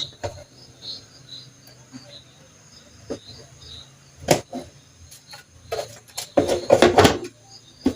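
Small clicks and knocks of plastic and metal blender parts being handled and fitted together: a sharp click about four seconds in and a burst of clicks near the end. Faint high chirps repeat steadily in the background.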